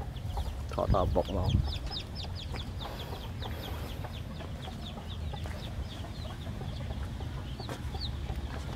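Chickens: a few louder clucks about a second in, over a steady stream of short, high peeps.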